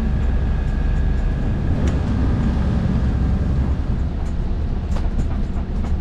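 Strong wind buffeting the microphone in the cockpit of a sailing yacht motoring through 30–40 knot gusts: a steady, heavy low rumble with a few faint clicks.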